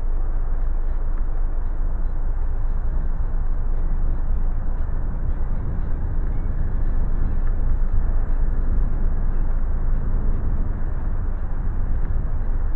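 Wind buffeting the microphone of a camera on a moving bicycle: a steady low rush with the rumble of riding along the path.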